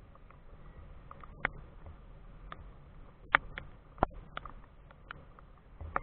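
Scattered raindrops tapping on the helmet camera's housing: a dozen or so sharp, irregular ticks, the loudest a little past three and four seconds in.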